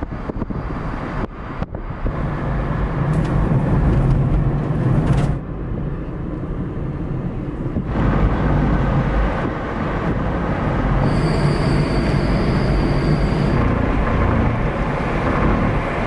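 A car driving, its engine and road noise a steady rumble heard from inside the car. There are a few abrupt changes in level, and a thin high tone lasts a couple of seconds about eleven seconds in.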